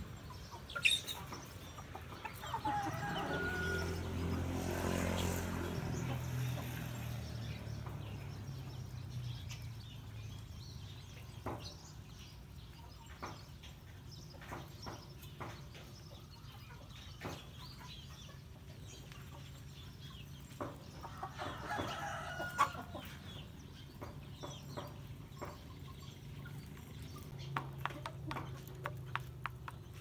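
Chickens and roosters clucking and calling while they peck at grain, with many short sharp ticks of beaks pecking the ground. The calls are loudest a few seconds in and again about two-thirds of the way through.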